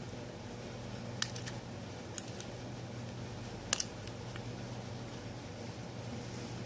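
A few light, sharp clicks of small tools and phone parts being handled on a tabletop: one about a second in, another a second later, then a quick double click, over a steady low hum.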